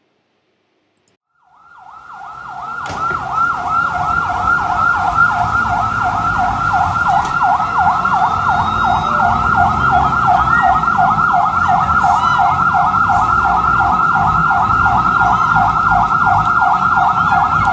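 Fire truck siren sounding in a fast, even warble, starting about a second and a half in, over a low rumble.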